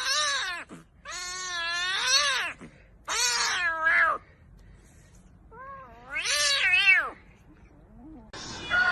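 Cat yowling: four long, drawn-out meows whose pitch wavers up and down, with short pauses between them.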